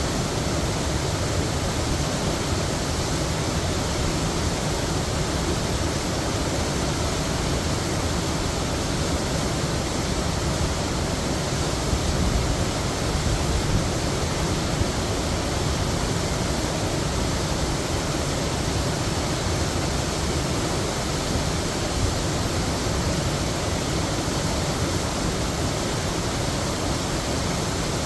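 Heavy waterfall: a dense, steady rush of falling water, unchanging throughout.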